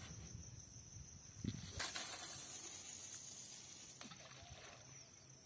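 Fishing line hissing off the reel during a cast: a sudden rush of hiss about two seconds in that fades away over the next two seconds.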